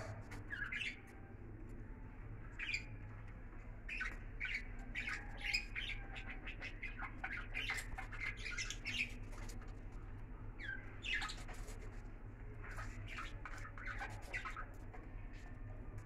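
Budgerigars giving short, scratchy chirps and squawks on and off, in quick runs, over a steady low hum.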